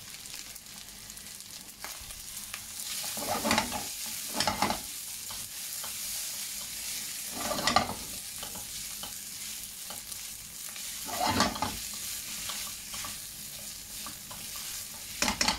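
Prawn fried rice sizzling steadily in a non-stick pan, stirred and turned with a silicone spatula: about five louder scraping strokes stand out over the sizzle, the last near the end.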